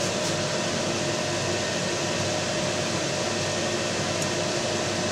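A steady whirring hum with hiss, like a running fan, holding level without a break.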